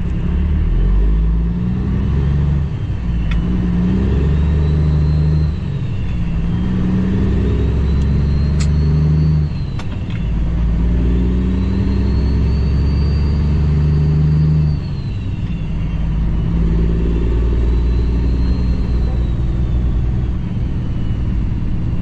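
Cummins ISX diesel in a Kenworth W900L tractor pulling away and running up through the gears. The engine note climbs and dips back at each of about three gear changes, with a high whine rising and falling along with each pull.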